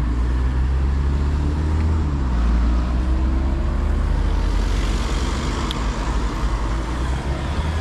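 Road traffic: cars driving along a street, with a heavy steady low rumble and one engine rising in pitch as it passes.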